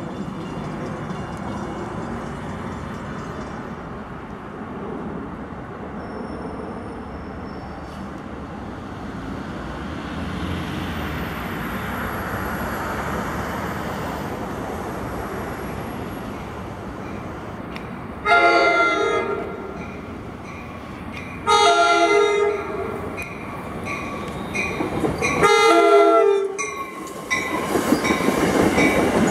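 NJ Transit commuter train approaching, its rumble growing, then sounding its horn three times (the last blast the longest) before passing close by with a loud rush of wheels on rail.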